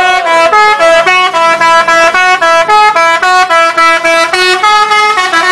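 Bus telolet horn, a multi-trumpet air horn, playing a fast tune of short stepped notes, about four notes a second.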